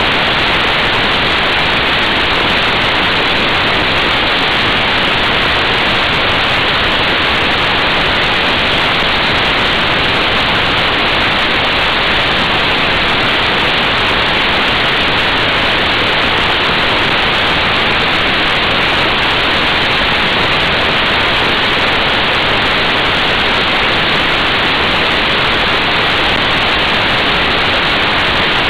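Steady, unbroken rushing hiss of wind on the microphone of a camera riding on a motorcycle at motorway speed, with no engine note standing out.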